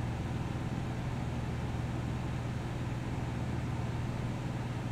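Steady low hum with a faint even hiss: background room noise, with no change throughout.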